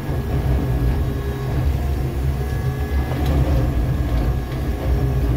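Jackson 6700 ballast tamper running steadily, its engine and hydraulics droning low and even as heard from the operator's seat.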